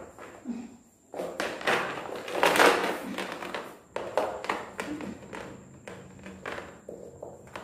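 Rustling and scuffing with irregular light taps and knocks as cord is handled around wrists tied behind a plastic chair's back, the rustling loudest about two to three seconds in.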